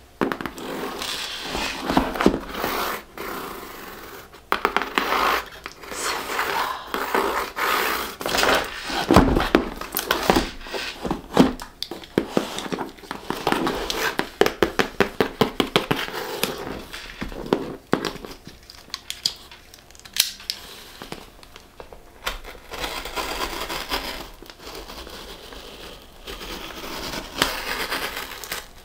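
Fingernails tapping and scratching on a corrugated cardboard shipping box, with packing tape being slit and peeled by a small cutter so that the tape crackles and tears. The taps come in quick runs, densest around a third of the way in.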